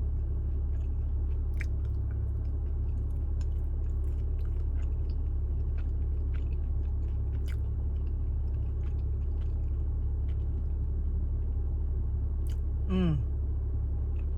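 Close-up chewing of a mouthful of chewy Korean rice cake, with small wet mouth clicks, over a steady low hum. Near the end comes one short falling vocal "mm".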